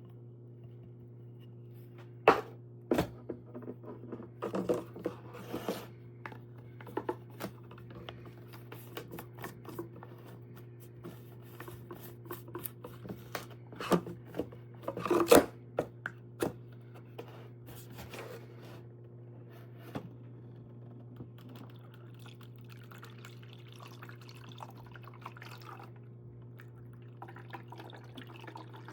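Clicks and knocks of a plastic cold brew coffee maker being handled, loudest about two, fourteen and fifteen seconds in. From about twenty-two seconds on there is faint liquid running or dripping, over a steady low hum.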